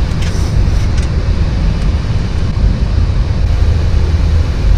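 Steady, loud cockpit noise of a Boeing 737-800 in flight: a low rumble of engines and airflow, with a couple of faint clicks in the first second.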